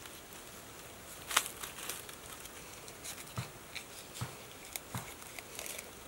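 Rotten wood crackling and splitting as bare hands pry a decayed log apart, with scattered light clicks and snaps, the sharpest about a second and a half in, over a faint steady hiss.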